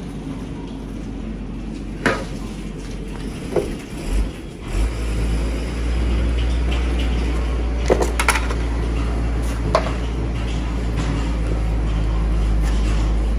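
Metal hand tools and parts clinking as they are picked up and set down on a steel workbench: a few separate sharp clinks, with a quick cluster of them about eight seconds in. A steady low hum comes in about five seconds in and continues underneath.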